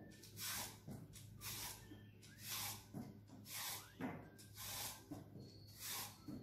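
Vegetable peeler scraping the skin off a carrot in short strokes, about one a second.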